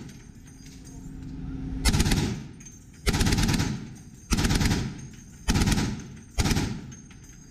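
M2 .50 calibre heavy machine gun fired in five short bursts, the first nearly two seconds in, then about one a second.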